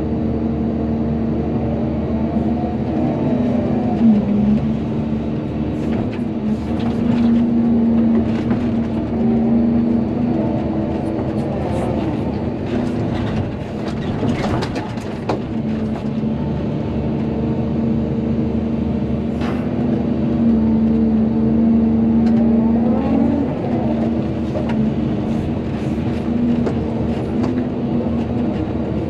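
Volvo EC220DL excavator running under load, its diesel engine holding a steady hum while the pitch of the machine rises and falls every few seconds as it works. Scattered knocks and clanks come through, mostly in the middle stretch.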